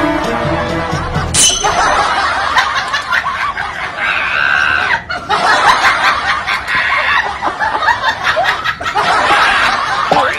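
Laughter, a dense choppy stretch of it, following a brief bit of music that gives way about a second and a half in.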